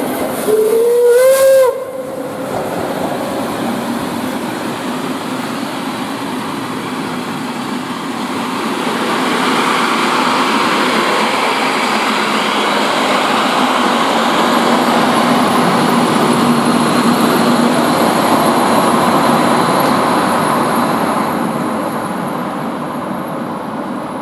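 Steam whistle of class 01 express steam locomotive 01 180: one short blast about half a second in, rising in pitch, a greeting from the driver. Then the train rolls past with a steady rushing of wheels on rails, louder in the middle and fading near the end.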